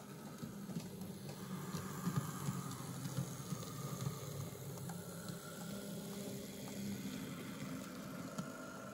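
A model railway train running past: the small electric motor of a model diesel locomotive built on an Arnold steam-loco chassis whines faintly while the loco and a long rake of open wagons rumble over the track. It grows louder over the first couple of seconds, then keeps on steadily.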